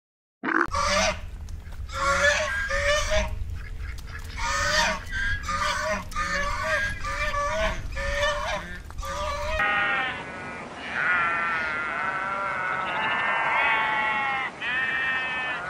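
Greylag geese honking, a quick run of short calls over a low rumble. About ten seconds in, this gives way to a flock of sheep bleating, several long, wavering bleats overlapping.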